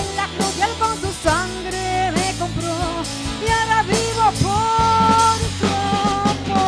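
Live Christian worship band music with a drum kit and a lead melody that slides between held notes.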